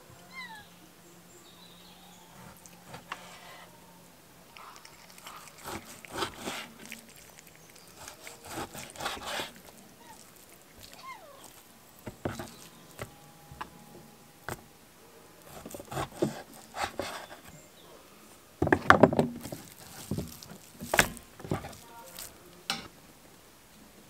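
Large kitchen knife cutting raw beef into chunks on a wooden board: repeated bursts of slicing and knocks of the blade against the wood, the loudest run of cuts about three quarters through.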